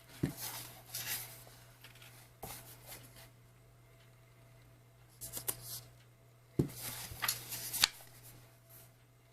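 Paper pages of a CD album photobook being turned and handled: short spells of paper rustling and light taps, four times, with quiet gaps between.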